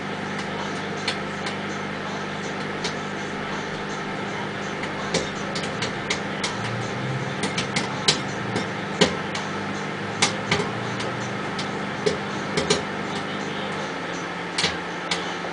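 Popcorn kernels popping in a bowl inside a running microwave oven: sharp, irregular pops, thickest in the middle stretch, over the oven's steady hum.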